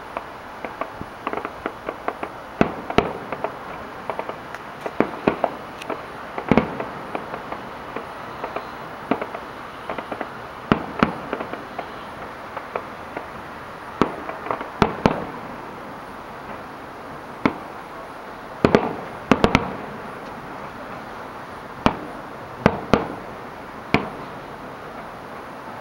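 Aerial firework shells bursting: a steady run of sharp bangs at irregular intervals, some coming in quick clusters.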